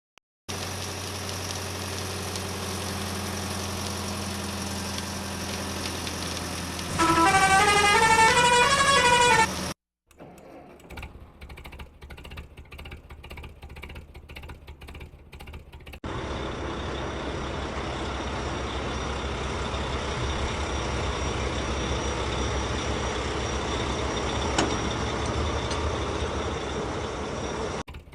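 Vehicle engine and siren sounds. A steady engine drone is broken about seven seconds in by a loud siren wailing up and down for about three seconds. After a brief cut, an engine runs choppy at first and then steady for the rest of the stretch.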